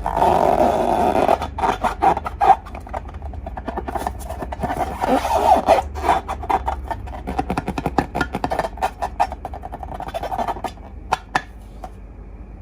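Slime being squished and stretched by hand, a dense run of sticky crackles and clicking pops that stops about eleven seconds in after two last clicks.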